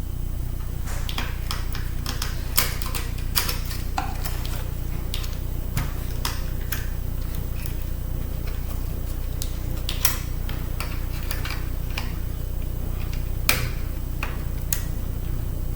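Scattered small clicks and taps of a screwdriver and metal parts while the screws of a MacBook optical drive are worked out, at uneven intervals, over a steady low hum.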